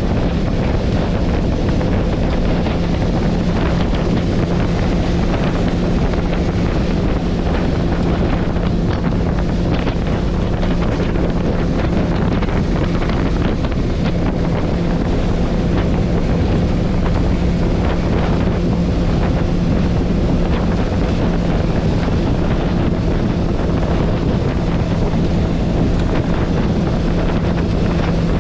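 Wind blasting across the microphone over the steady drone of a bass boat's outboard engine held at top speed, about 69 mph.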